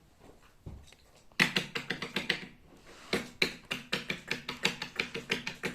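Lovebird's beak pecking and nibbling at the camera: quick runs of sharp clicking taps, several a second, starting about a second and a half in, with a short pause about halfway through.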